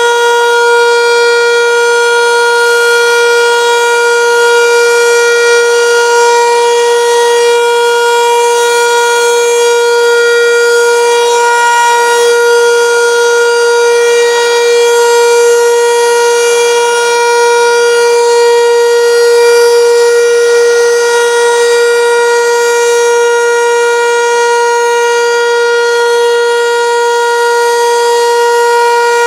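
Landert MSL-6 motor siren sounding a loud, steady tone held at one pitch. It is the Austrian civil-defence 'Warnung' (warning) signal, a three-minute continuous tone, given here as part of the annual siren test.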